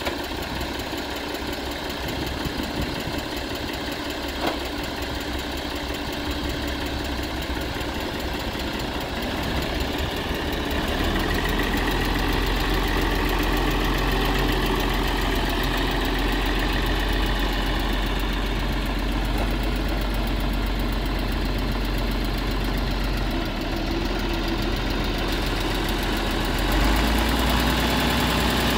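International 1066 tractor's turbocharged six-cylinder diesel engine running at a steady idle, growing louder about a third of the way through and again near the end.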